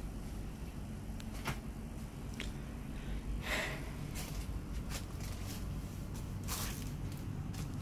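Indoor room tone: a steady low hum with scattered faint clicks and rustles, and a short hissing noise about three and a half seconds in.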